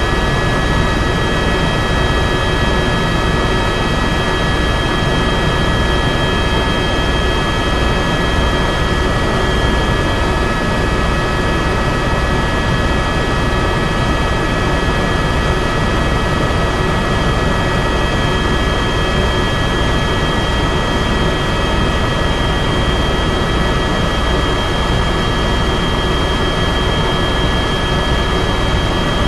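Aircraft engine noise heard inside the cabin: a steady wide hiss with several high, even whining tones over it.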